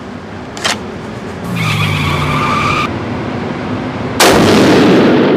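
A single .300 PRC bolt-action rifle shot about four seconds in: a sudden loud blast followed by a long echoing tail. A small click sounds earlier, about half a second in.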